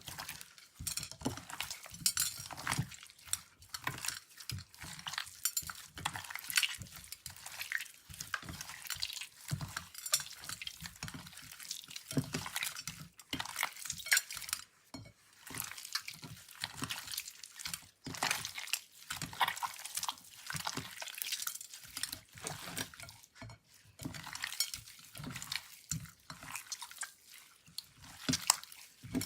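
Store-bought slime being mixed and stirred: an irregular run of wet squishes, sticky pops and clicks, with a few brief pauses.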